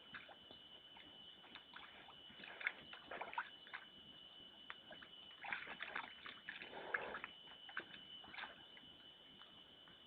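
A bear working in a water-filled feeding hole: irregular sloshing and splashing of water with scattered clicks, in short bursts. A steady faint high whine runs underneath.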